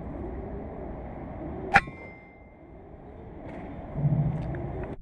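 A single shot from a Kalibrgun Cricket II .22 PCP air rifle on a low power setting, about two seconds in: a sharp crack with a brief metallic ring after it. About four seconds in there is a short, dull low thud.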